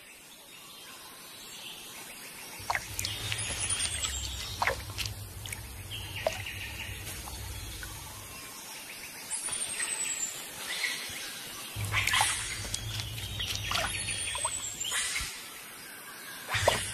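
Tropical forest ambience: a bird repeats a high, falling whistle about three times, over scattered small clicks and light water sounds, with a low rumble that comes and goes underneath.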